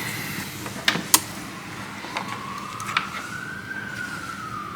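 A siren wailing slowly, one tone rising and then falling in pitch, starting about two seconds in. Two light clicks come about a second in.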